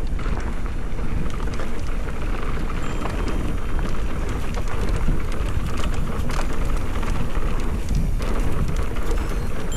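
Specialized Turbo Levo electric mountain bike riding fast down a dirt trail: tyres crackling over loose dirt and stones, with many sharp clicks and clatters from the bike and a low rumble of wind on the microphone.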